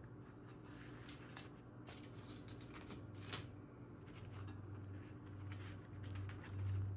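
Faint rustling and a scattering of light clicks from things being handled, over a steady low hum.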